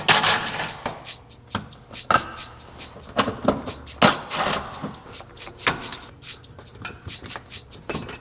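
Cordless driver with a socket extension spinning out 10 mm bolts from a plastic under-tray splash shield, in two short bursts, at the start and about four seconds in. Scattered sharp clicks and knocks of the plastic panel and push clips come between.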